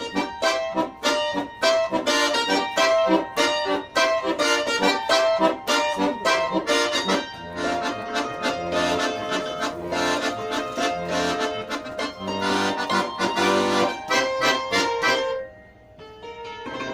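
Accordion playing a quick tune of short, regular notes with chords and bass underneath; it breaks off for about a second near the end, then picks up again more softly.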